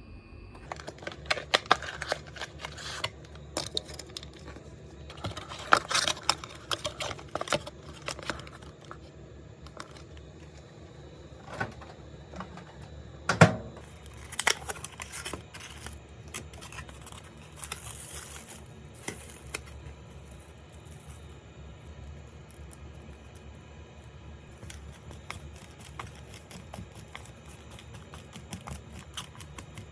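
Objects being handled: scattered clicks and rustling, with one louder knock about halfway through, then lighter ticking.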